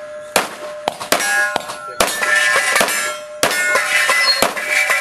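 Rapid string of pistol shots, about eight, fired in a USPSA stage, with struck steel targets ringing between the shots.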